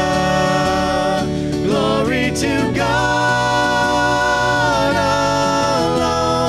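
Church praise band music: sung notes held long over instrumental backing, with a slide in pitch between notes about two seconds in.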